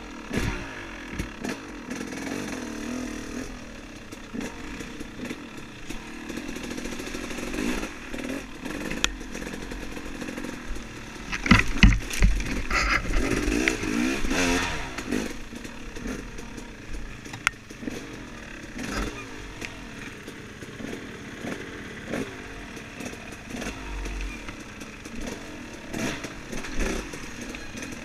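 Off-road dirt bike engine revving up and down as it is ridden over rough trail, with a burst of knocks and clatter from the bike about twelve seconds in, the loudest moment.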